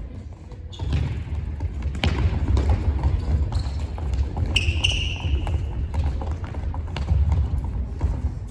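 Soccer ball thuds and quick footsteps on a wooden gym floor, echoing in a large hall, as players dribble and tackle in a 1v1 duel. A brief high squeak comes about halfway through.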